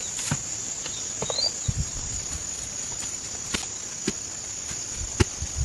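Crickets or other insects droning steadily at a high pitch, with scattered irregular knocks and thuds from building work, the sharpest about five seconds in.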